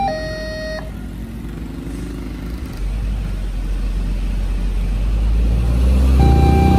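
Level-crossing warning alarm, two electronic tones alternating high and low, cutting off under a second in as the barrier lifts. Then traffic moving off over the crossing: car and motorcycle engines with a low rumble that builds toward the end, where the two-tone alarm starts up again.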